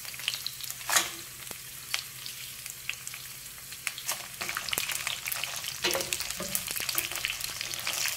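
Dried red chiles, onion, garlic and ginger frying in hot oil in a pan, with a steady crackling sizzle and scattered sharp pops that grow busier about halfway through. Near the end a wooden spoon stirs them in the pan.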